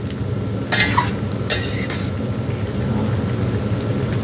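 A metal spoon stirring and scraping through chunks of radish, small dried anchovies and chili flakes in a nonstick pan, with two scraping strokes about one and two seconds in, over a steady low noise.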